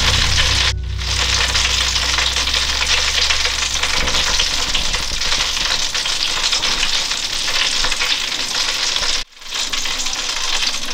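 Hot oil sizzling and crackling steadily as chicken deep-fries. The sound drops out briefly twice, about a second in and near the end, and a low hum fades away in the first few seconds.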